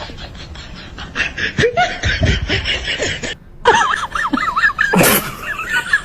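Someone snickering and laughing in quick, rhythmic bursts. About halfway through, the sound cuts abruptly to a different clip of wavering, warbling high calls.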